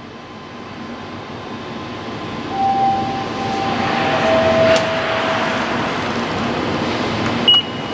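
A train's running noise, growing steadily louder, with steady tones in the middle. Near the end comes one short electronic beep from the ticket machine's PIN keypad.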